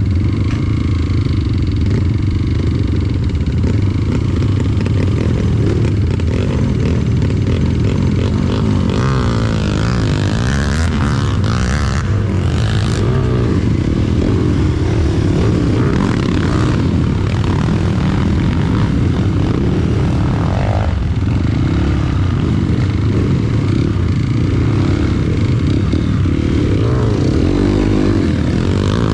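Trail motorcycle engine running steadily, with a few knocks around the middle.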